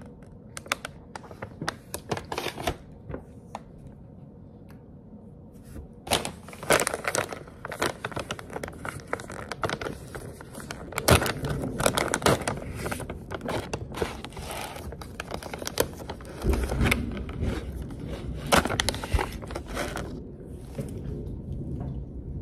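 A snack bag crinkling and crackling as it is handled and torn open. The crackles come sparsely at first, grow dense about six seconds in, and thin out near the end.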